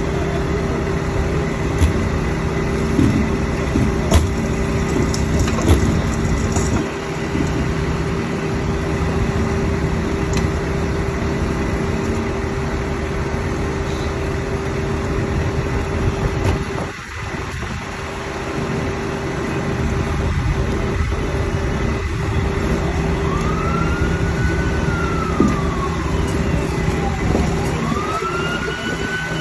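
A steady engine drone, from a fire apparatus or rescue-tool power unit, runs with scattered knocks and clanks of rescue work on the car. About two-thirds of the way in, an emergency vehicle's siren starts to wail, sweeping up and down twice.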